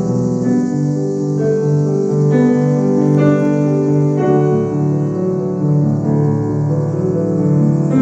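Background piano music, a steady flow of sustained notes.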